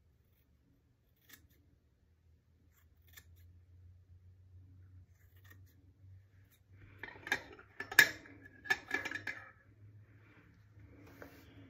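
Hair-cutting scissors snipping through a section of hair held between the fingers. Two faint snips come in the first few seconds, then a quick run of louder snips from about seven to nine and a half seconds in.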